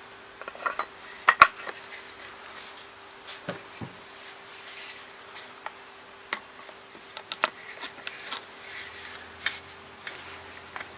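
Metal rifle action being fitted into a wooden stock: scattered clicks, light knocks and rubbing of metal against wood, the loudest knock about a second and a half in. A faint steady hum runs underneath.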